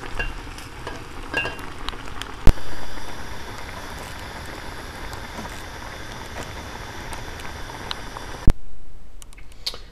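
Saucepan of soba noodles and greens boiling hard, its water nearly boiled down to a thick sauce: a steady bubbling hiss, with small spoon clicks in the first two seconds. A sharp click about two and a half seconds in and another about a second before the end, where the bubbling cuts off suddenly.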